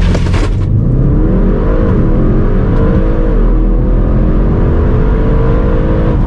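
Audi RS6's twin-turbo engine under full-throttle launch-control acceleration, heard from inside the cabin. A brief rushing burst opens it, then the revs climb with two quick upshifts, about two and three and a half seconds in, and keep rising in the next gear.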